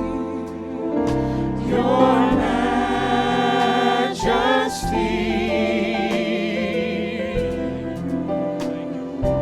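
Gospel worship music: voices singing over sustained keyboard chords, with the singing rising and wavering in pitch.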